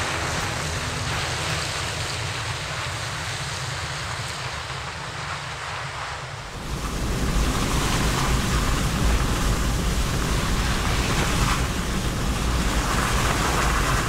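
Steady rushing noise, then about halfway through a louder low rumble takes over: tyre and road noise of an SUV driving a muddy dirt track, heard from inside the cab.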